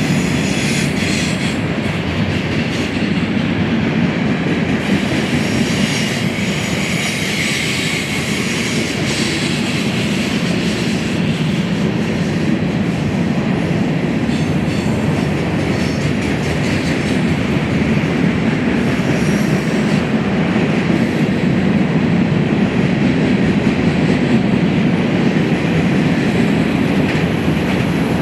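Freight train cars rolling past on the main line: a steady rumble of steel wheels on rail, with rhythmic clicking over the rail joints.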